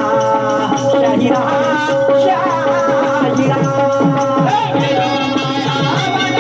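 Marathi tamasha folk music played live with no words: one note held throughout under a wavering melody, with quick regular drum strokes and rattling percussion.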